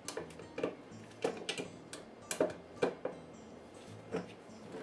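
Scattered light metallic clicks and clinks of hand tools (pliers and a wrench) working the locking nuts on a power steering cylinder's rod end, about a dozen separate taps with short gaps between them.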